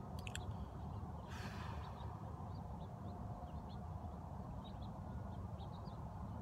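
Faint outdoor ambience: small birds chirping here and there over a steady low rumble, with a couple of clicks near the start and a brief hiss about a second and a half in.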